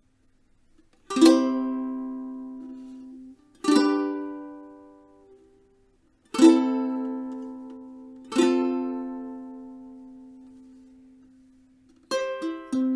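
Nalu Carbon ukulele: four strummed chords, each left to ring out and fade away, then a run of quick picked notes begins near the end.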